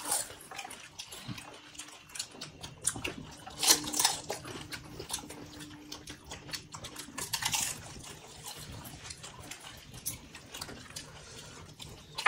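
Mouth sounds of people eating panipuri: wet chewing and slurping, with many small clicks and a few louder sharp bursts, the loudest about four seconds in.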